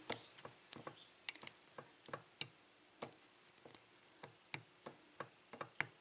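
Lock pick clicking against the pins inside a Master Lock No. 19 six-pin padlock: a string of faint, irregular ticks as the pins at the back of the keyway are lifted one at a time under tension.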